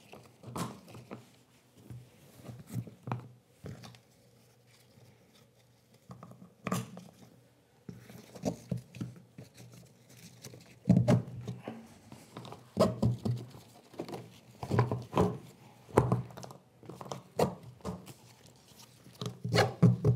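Kayak seat straps being clipped to the deck attachment points and cinched tight: irregular clicks and knocks of the strap hardware with rustling of nylon webbing, busier and louder in the second half.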